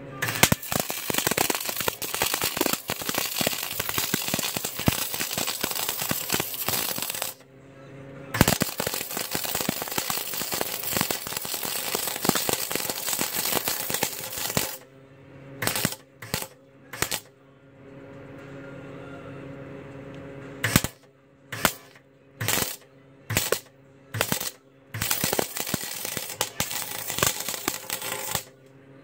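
Small 110-volt gas-shielded MIG welder crackling and sputtering as it butt-welds steel exhaust tubing: two long runs of several seconds, then a string of short tack bursts about a second apart, then another run near the end. A steady hum sounds between the runs.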